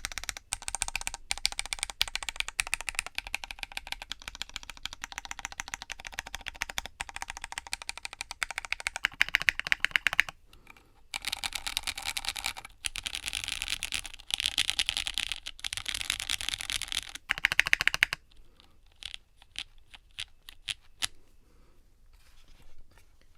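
Fast typing on a 60% mechanical keyboard with Gateron Pro Yellow linear switches in a walnut case, gummy O-ring mounted on silicone cord stock: a dense, rapid run of keystrokes that thins to a few last presses after about eighteen seconds, then stops.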